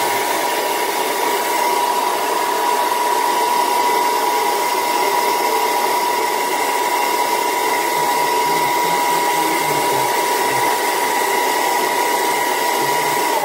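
Hand-held hair dryer running on a steady setting: a loud, even rush of air with a high steady whine from its fan motor. It is switched off right at the end.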